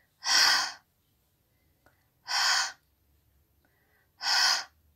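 A woman's breathy, voiceless "h" sound, the phonics sound of the letter H, breathed out three times about two seconds apart.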